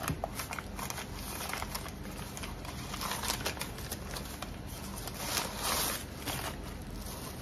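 Brown packing paper rustling and crinkling with many small crackles as it is unwrapped from a glass cup, a little louder about five seconds in.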